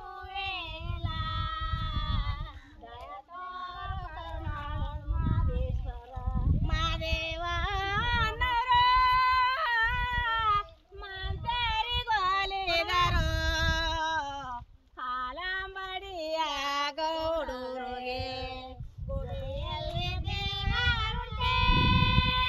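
A woman singing an unaccompanied folk song, a work song for transplanting rice, in long, held, wavering notes with short breaks for breath.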